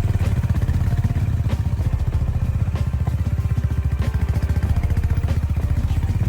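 Single-cylinder motorcycle engine running close by at a steady, even pace, a rapid regular thump with no revving.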